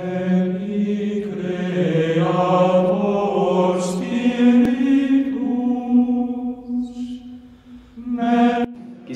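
Religious chant: voices singing long, held notes that step from one pitch to the next, with a brief lull before a short closing phrase near the end.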